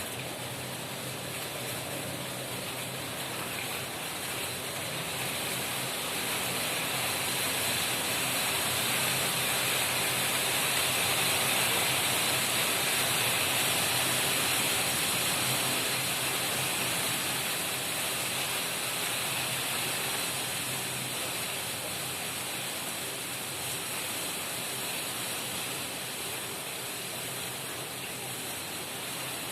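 Heavy thunderstorm rain driven by strong wind, a steady hiss that swells to its loudest about halfway through and then eases a little.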